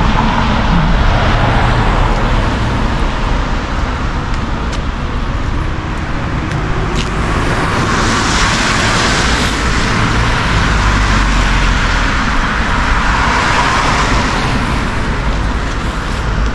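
Road traffic: cars passing on a wet street, their tyre hiss swelling as each goes by, over a steady low rumble.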